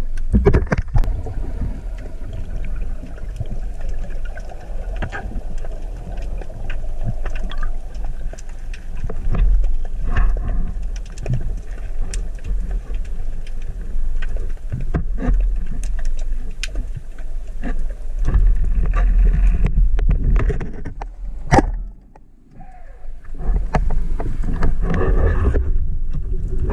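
Underwater sound picked up through a dive camera's housing: a steady low rumble of moving water with scattered small clicks. About 21 seconds in comes a single sharp crack, the shot of a pneumatic speargun, and the noise then drops away briefly.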